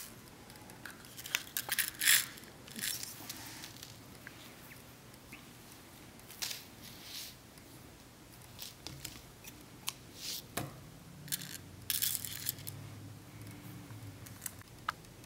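Glass seed beads clicking and scraping against a paper plate as they are picked up and strung onto thread, with light rustling of the thread being pulled through; short scattered clicks and scratchy rustles.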